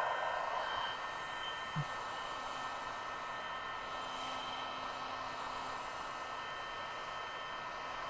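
Heat gun blowing steadily, warming the phone's dock connector.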